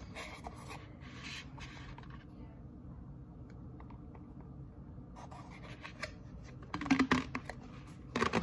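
Hands pressing down on and gripping a cardboard cornstarch box to pack the starch inside: scratchy rubbing and crinkling of cardboard, with two short louder bursts near the end.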